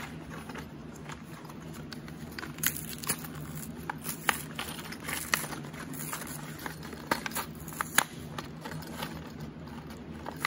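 Paper backing being peeled off a clear plastic blister pack of nuts, bolts and washers: the plastic crinkles and crackles, with scattered sharp clicks throughout.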